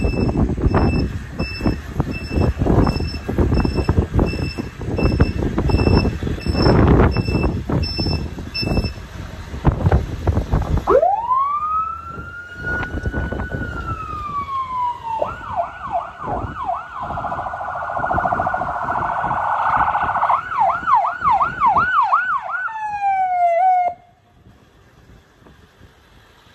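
Ambulance electronic siren cycling through its tones: starting a little before halfway, one long wail rising and falling, then a fast yelp, a quicker warble and a few short falling sweeps, cut off suddenly near the end. Before it, wind gusts on the microphone over a steady repeated beep.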